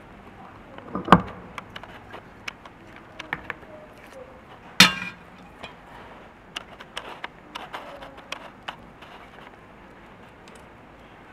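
Clicks, taps and scraping of a stick poking bread out of a manual metal meat grinder's perforated plate and cross blade, with two louder metal knocks, about a second in and near the middle, the second the loudest.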